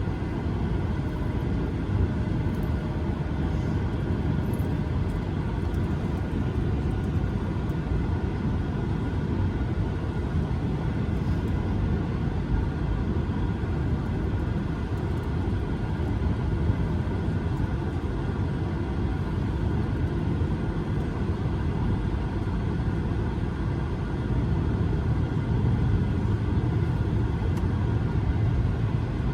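Cabin noise inside an Airbus A220-300 on the ground: the steady hum and rumble of its Pratt & Whitney PW1500G geared turbofans at low power while the jet taxis. It grows slightly louder for a few seconds near the end, with no spool-up to takeoff power.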